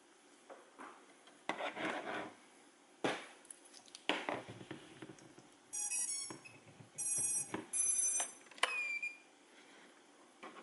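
Handling noises (rustles and knocks), then a short run of high electronic beeps, three or four in quick succession, from the quadcopter's electronics or its radio transmitter during setup.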